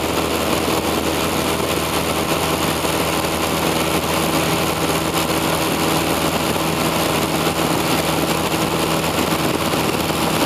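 Small propeller airplane's piston engine and propeller droning steadily in cruise flight, heard from inside the cabin: an even hum at one unchanging pitch.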